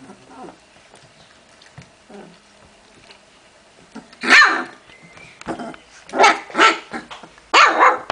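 Hungarian vizsla puppies barking at play: a few faint grunts, then four loud, high barks in the second half.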